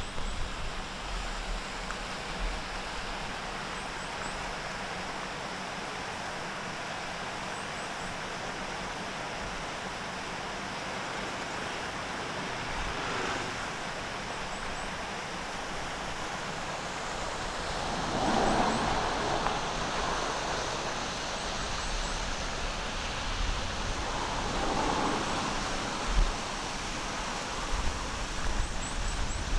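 Steady outdoor background noise along a road, with cars passing: the louder swells come about eighteen and twenty-four seconds in, and a smaller one just after thirteen seconds.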